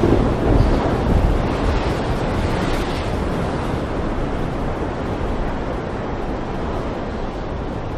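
Stormy sea: waves surging with wind in a steady rush, while a low rumble of thunder fades out over the first second or two.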